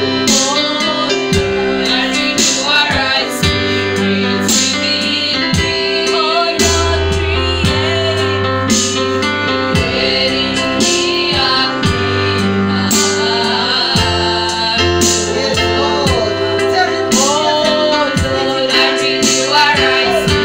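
Gospel song sung by women's and men's voices over a band accompaniment with guitar, bass and a steady beat.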